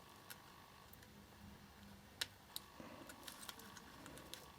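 Near silence: faint room tone with a few light clicks, the clearest about two seconds in and several small ones near the end, from small electronic parts being handled.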